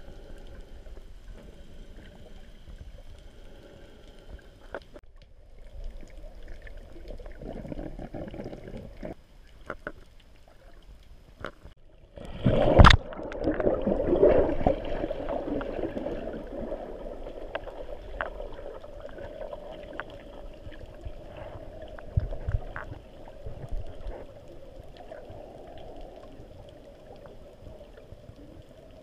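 Muffled underwater sound picked up through a GoPro's waterproof housing: water movement and bubbling with scattered small clicks. About thirteen seconds in, a sudden loud rush of bubbles breaks in and slowly fades.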